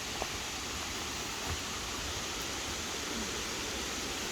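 Steady rush of running water, an even hiss at a constant level, with a couple of faint knocks near the start.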